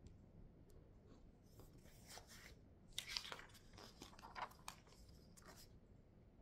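A page of a thick textbook being turned by hand: a few seconds of quiet paper rustling and crinkling, loudest about three seconds in.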